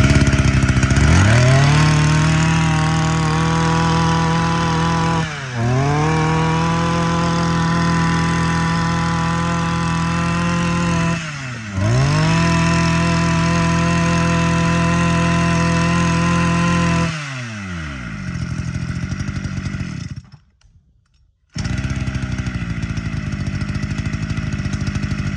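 Echo Kioritz 23cc two-stroke brush cutter engine running at a steady fast speed, dipping briefly twice and recovering, then dropping back to idle. Near the end it goes silent for about a second and a half, then idles again.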